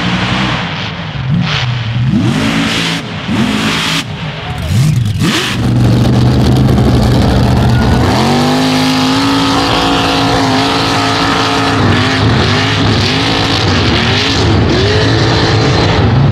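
Mud-bog trucks' big engines revving hard at full throttle through a mud pit, the pitch swooping up and down in the first half. About halfway in, an engine holds a high, steady rev with small wavers as a truck runs flat out.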